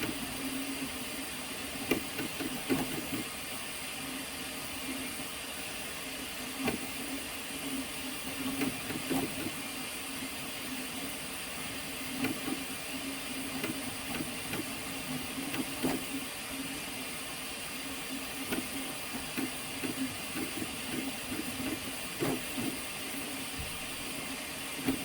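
3D printer running: a steady motor hum and fan hiss, with scattered clicks and knocks.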